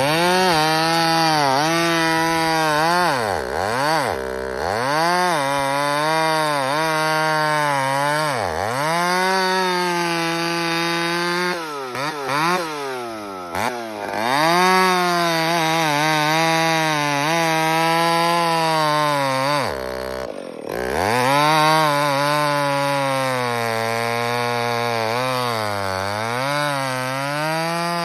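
Two-stroke chainsaw running at high revs as it cuts through wood with an aggressive semi-chisel chain. The engine pitch sags and several times drops off sharply before climbing back as the throttle and load change.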